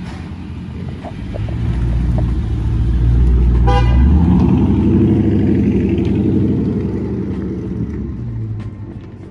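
A car's engine rumble swells up close and then fades away, as when a car drives past. A short horn toot sounds near the loudest point, just under four seconds in.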